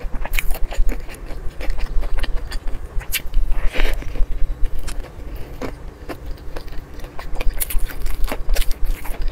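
Crispy fried chicken being bitten and chewed, loud and close, the battered coating crunching in many sharp, irregular crackles, with a thicker crunch about four seconds in as she takes a bite.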